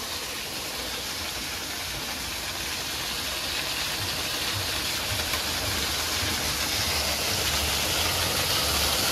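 Waterfall pouring down rockwork and splashing into a pool, a steady rushing that grows louder over the seconds, with a low rumble joining about halfway through.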